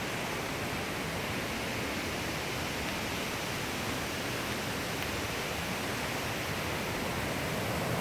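Steady rushing of a glacier-fed mountain river over rocks, an even wash of white-water noise that grows a little louder near the end.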